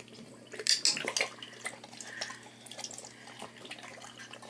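Water splashing and dripping in a glass bowl as a boxer–heeler mix dog pushes her muzzle into it, in a run of short wet splashes with a louder burst about a second in.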